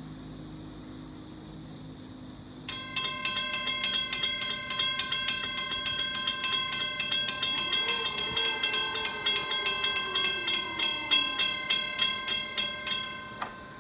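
Railroad grade-crossing warning bell ringing steadily at about four strikes a second, starting a few seconds in as the crossing signals activate for an approaching train and cutting off shortly before the end.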